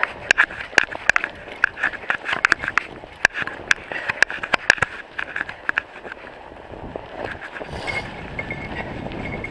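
A mountain bike ridden down a snowy trail, its frame and parts rattling and clattering over the bumps. The clatter is dense for the first five seconds, then gives way to a steadier rolling noise.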